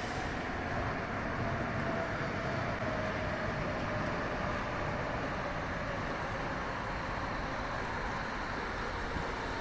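Berlin S-Bahn electric train running past on the elevated ring line: a steady rumble of wheels on rail, with a faint motor whine that falls slightly in pitch over the first few seconds.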